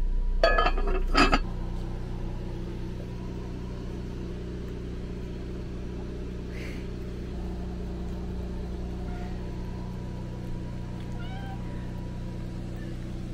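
Two loud clattering knocks about half a second to a second in, then a steady low hum, with a domestic cat meowing a few times, short and faint, near the end.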